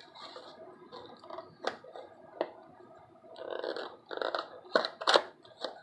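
Cardboard box of 2019 Topps Series 1 baseball cards being handled and its top flap worked open by hand: scattered soft taps, clicks and brief rustles of fingers on cardboard, with a couple of sharper clicks near the end.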